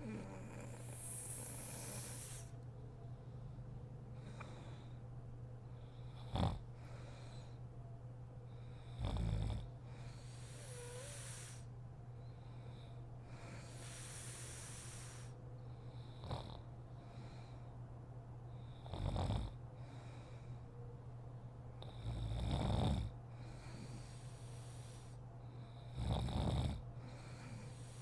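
A sleeping woman snoring: six short, rough snores a few seconds apart, with airy breaths between them. A steady low hum runs underneath.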